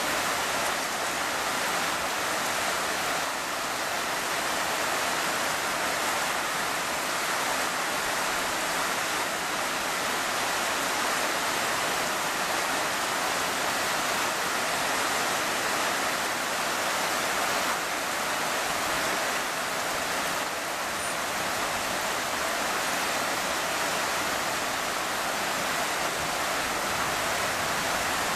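Heavy rain falling in a steady, dense hiss that does not let up.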